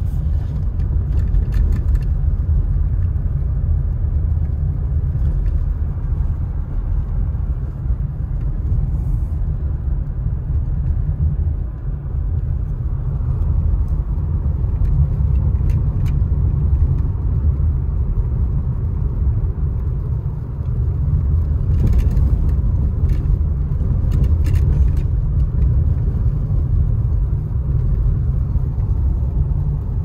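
Car interior noise while driving on a snow-covered road: a steady low rumble of tyres and engine, with a few faint clicks scattered through.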